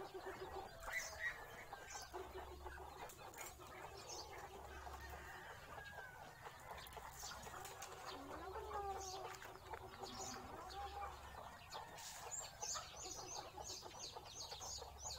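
Chickens clucking softly among themselves, with a run of short high chirps repeating quickly near the end.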